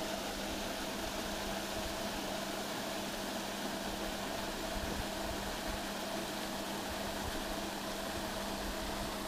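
Steady mechanical hum with an even hiss, from a fishery lake's aerator running.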